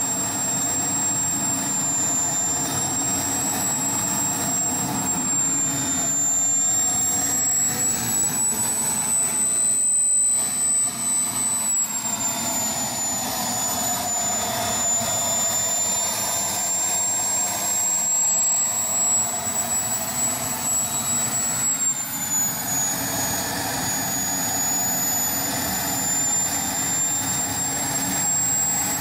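King Tech 310 model jet turbine running steadily: a continuous rushing roar under a high whine whose pitch drifts slightly up and down.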